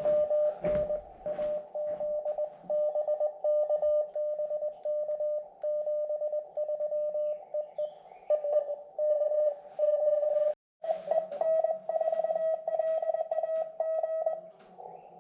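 Morse code (CW) from an amateur radio transceiver: a steady tone of about 600 Hz keyed on and off in dots and dashes. It cuts out for a moment about two-thirds of the way through.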